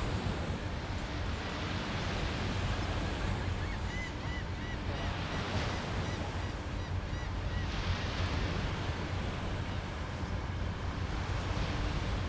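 Surf washing onto the beach with wind rumbling on the microphone. From about four seconds in, a bird gives a quick run of short, repeated calls for a few seconds.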